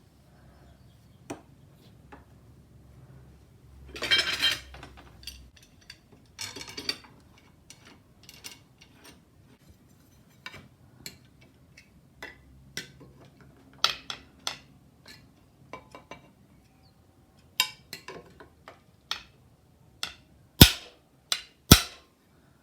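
Small pieces of sheet metal being handled and fitted by hand: scattered metallic clinks and taps, a longer scraping rustle about four seconds in, and two sharp knocks near the end.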